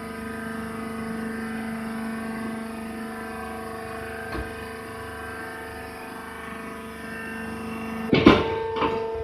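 Hydraulic press baler running, its pump motor giving a steady hum. About eight seconds in there is a loud metallic clank, followed by a couple of smaller knocks as the hum's pitch changes.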